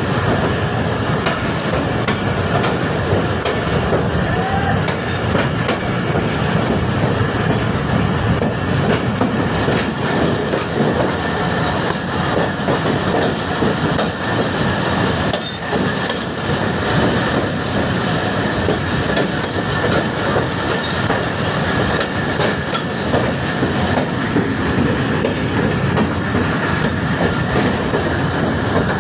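Train running: a steady loud rumble of the carriages with irregular clicks and clacks from the wheels.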